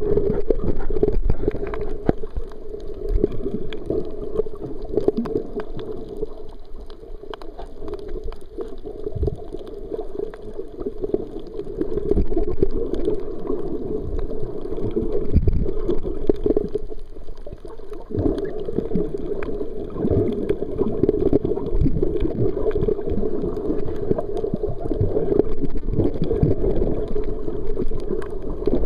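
Muffled underwater noise picked up by a submerged camera: a continuous low wash of moving water that swells and eases, dotted with many faint clicks and knocks.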